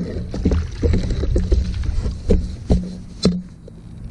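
A landing net worked in the water beside a fishing boat's hull: water sloshing and splashing, with several short sharp knocks of the net against the boat over a steady low rumble.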